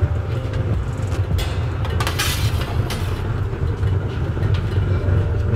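Steady low roar of a gas-fired tandoor oven's burner, with a brief hiss lasting about a second, about two seconds in.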